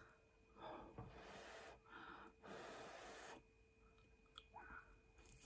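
Faint close-up breathing: three or four soft, breathy puffs of air over the first three seconds or so, then a few small mouth clicks near the end as a forkful of spaghetti goes into the mouth.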